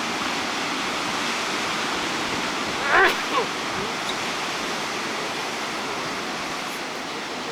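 Ocean surf making a steady rushing wash. About three seconds in, a short, loud pitched call sounds twice in quick succession.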